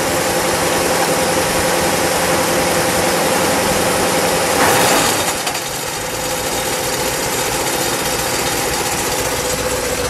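1960 Ford Thunderbird's 352 cubic-inch V8 idling steadily, briefly louder about five seconds in.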